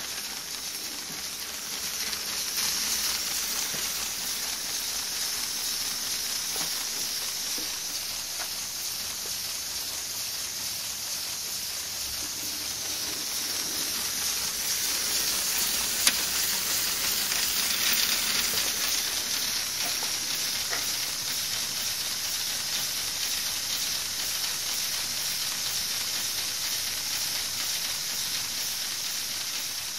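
LEGO pneumatic V8 engine running on compressed air: a steady hiss of air exhausting through its valves.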